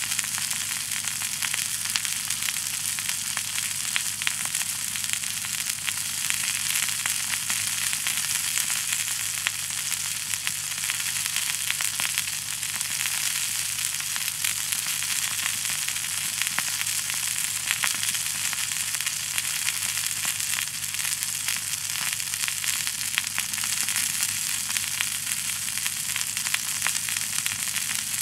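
Bacon-wrapped chicken and potatoes frying in a cast iron skillet over a campfire: a steady sizzle full of fine crackles.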